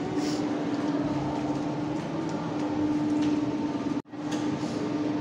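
Steady mechanical hum with a constant low tone, cutting out briefly about four seconds in.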